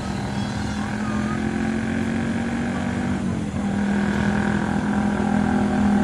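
CC 203 diesel-electric locomotive running steadily, a low engine hum with a higher whine above it; the engine note dips briefly and settles slightly lower about three and a half seconds in.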